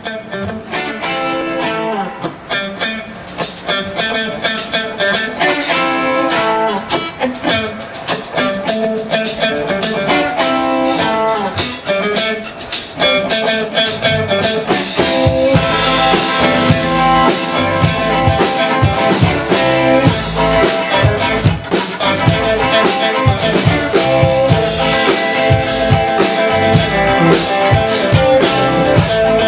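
Live blues band playing an instrumental intro on electric guitars. Bass and drums come in about halfway, and the music grows louder.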